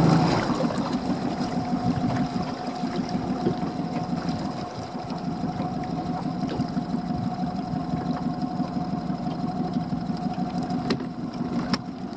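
Small boat's Honda outboard motor running steadily at low revs, a steady hum with a higher note over it, as the boat creeps along at slow speed.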